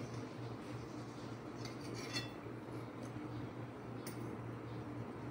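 Spoon and fork clinking faintly against a plate while eating, a light clink about two seconds in and another near four seconds, over a steady low hum.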